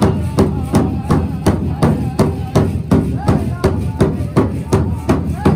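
Powwow big drum struck in unison by several drummers in a steady, fast beat of about four strokes a second, with the group's high-pitched singing over it.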